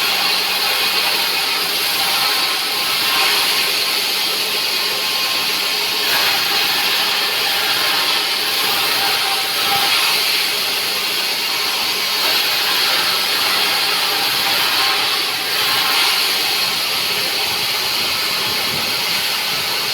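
Sawmill machinery running steadily: a loud, even hiss over a constant low hum, swelling slightly now and then.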